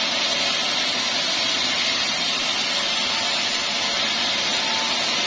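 Band sawmill running with a steady, even hiss.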